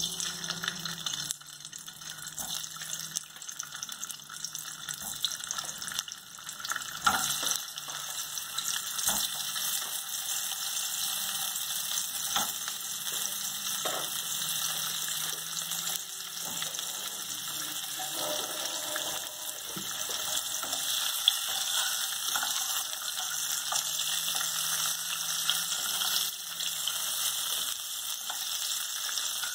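Turmeric-coated hard-boiled eggs frying in hot oil in a kadai: a steady sizzle that builds over the first several seconds as more eggs go in, with occasional knocks of a wooden spatula against the pan.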